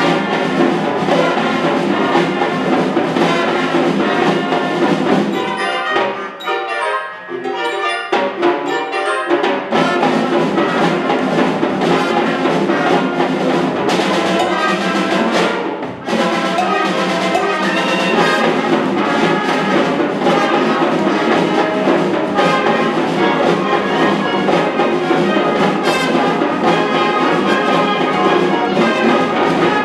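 Symphonic band playing, full and brass-heavy with trumpets, trombones and percussion. The texture thins out briefly about six to eight seconds in, then the full band comes back in.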